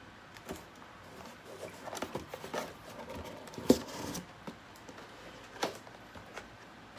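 Handling of makeup products and their packaging during an unboxing: scattered rustles and light clicks, with a sharp tap about three and a half seconds in and another a couple of seconds later.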